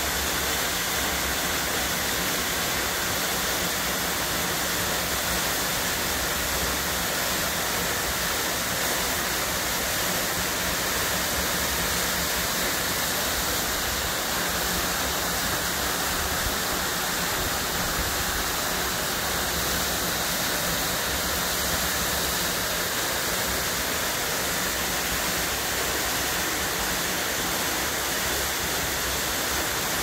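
Waterfall pouring down a rock face into a pool, a steady, even rush of water.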